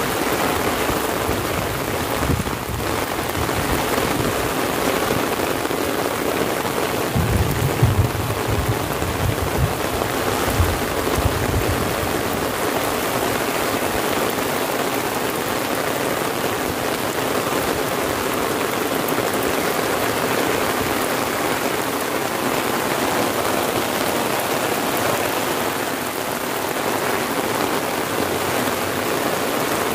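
Heavy rain pouring steadily, drumming on an umbrella held overhead and hissing on the paved road and the vegetation around. About a third of the way through there are a few seconds of low rumbling.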